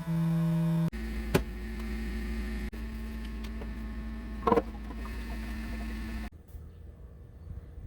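A small electric motor running with a steady hum. It shifts to a lower, rumbling note about a second in, with two sharp clicks, and stops abruptly near the end.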